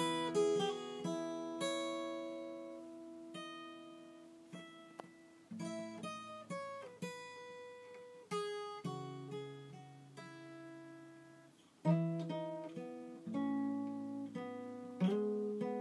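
Acoustic guitar played slowly: chords strummed and left to ring out for several seconds, with single plucked notes in between.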